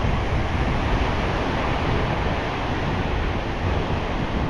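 Surf washing through the shallows, with wind buffeting the microphone in a steady low rumble.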